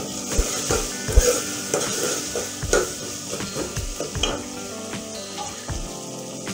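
Onion-tomato masala sizzling as it fries in an aluminium pot, stirred with a metal spoon that scrapes and knocks against the pot. The knocks come thick for the first four seconds or so and thin out near the end.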